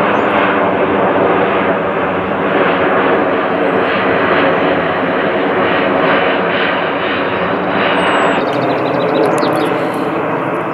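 Boeing C-17 Globemaster III's four Pratt & Whitney F117 turbofan engines, loud and steady as the jet passes low overhead and flies on; the deepest rumble drops away near the end.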